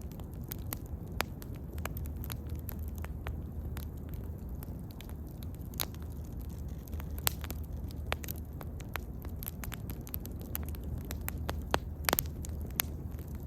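Bonfire crackling: scattered sharp pops and snaps from the burning wood over a steady low rumble of the flames, with a quick run of louder pops near the end.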